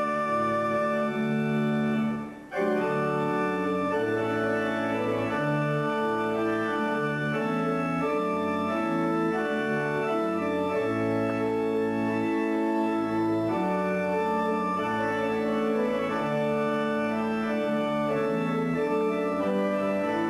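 Organ music of held chords that change every second or so, with a brief dip about two seconds in before the organ carries on.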